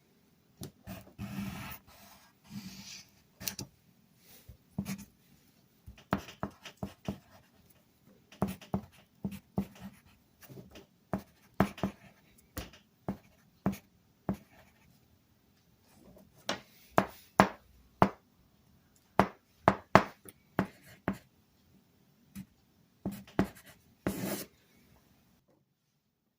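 Irregular sharp taps and knocks, a few a second at their busiest, as a small steel strip is worked and bent into shape to make a toolbox latch catch.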